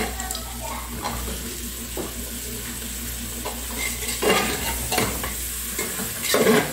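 Pieces of pork sizzling as they fry in onion, garlic and colorau in an aluminium pressure cooker pot, stirred with a long metal spoon that scrapes against the pot. The scraping and clatter grow louder twice in the second half.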